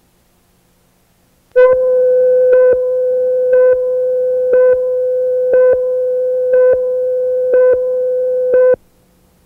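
Countdown leader tone on an old videotape: one steady mid-pitched test tone held for about seven seconds, with a brief louder blip marking each second of the count, eight in all, then cutting off suddenly.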